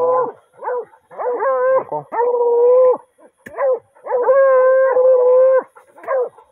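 Hounds baying: long drawn-out calls of about a second or more, each rising at its start, broken by short barks, the cry of dogs working an armadillo's burrow.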